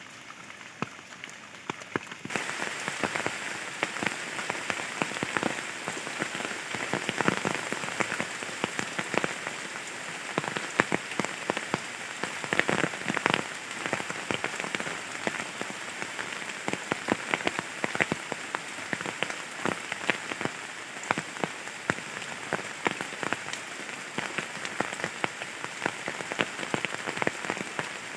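Steady rain falling, with many individual drops ticking sharply through the hiss. It becomes suddenly louder about two seconds in, then keeps on evenly.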